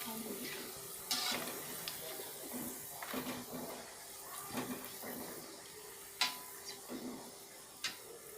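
A metal spoon clinking and scraping against a frying pan as emping melinjo are stirred and lifted from the oil, with scattered sharp knocks, some ringing briefly, over a faint steady hiss of frying oil.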